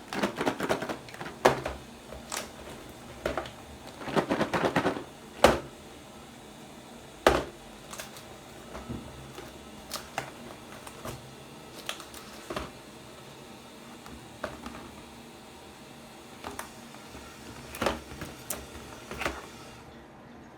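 A run of irregular sharp clicks and short clattering bursts, the busiest clusters about a second in and around four to five seconds in, then sparser single clicks every second or two.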